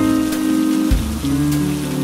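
Rain falling steadily on a window, mixed with soft jazz music: held chords over a bass line that moves to a new note about a second in.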